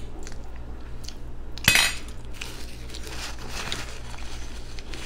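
Close-miked eating by hand: faint chewing and handling of bone-in meat over a steady low hum, with one sharp click or clink about a second and a half in.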